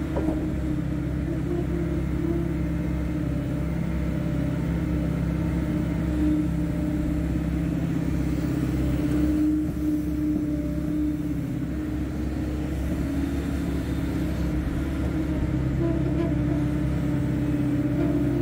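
Hydraulic excavator's diesel engine running steadily while digging. Its tone shifts slightly around the middle and again near the end.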